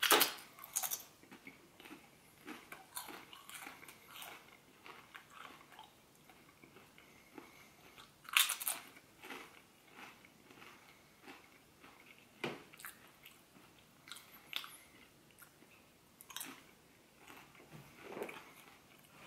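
A person biting into and chewing crunchy, fat-fried habanero-flavoured chips, with a run of short crisp crunches. The loudest bites come right at the start and about eight seconds in.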